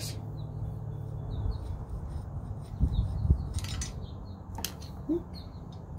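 Small metallic clicks and scraping as the bleed screw is turned out by hand from a Pittsburgh 1.5-ton hydraulic floor jack, over a steady low hum.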